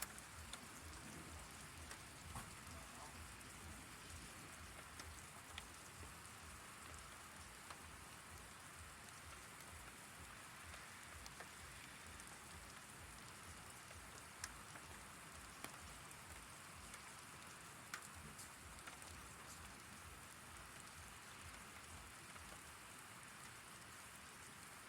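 Steady rain falling, heard faintly, with an occasional sharp tick of a drop striking a surface.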